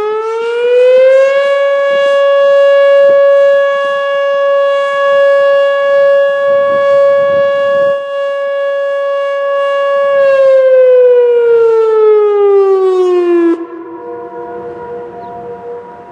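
Whelen OmniAlert OA1 electronic warning siren sounding a short alert blast. It is one strong tone with many overtones that rises in pitch for about a second, holds steady, then slides down from about ten seconds in and cuts off sharply some three seconds later. Fainter distant sirens, two 508s (lower) and a Thunderbolt 1000A (higher), are left holding steady tones.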